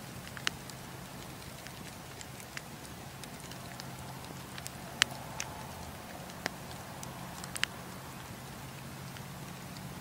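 Wood campfire burning with a steady hiss and scattered sharp crackles and pops from the logs, the loudest pop about five seconds in.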